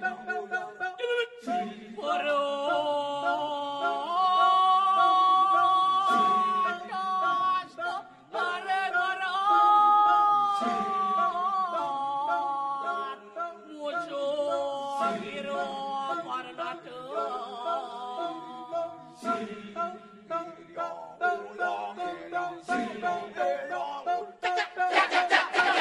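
Balinese kecak chant: a chorus of unaccompanied voices singing held, pitched lines that shift in pitch every few seconds. Near the end comes a quick run of short, staccato repeated chanting.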